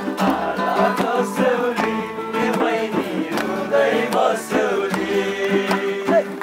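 A group of voices singing together to a strummed acoustic guitar.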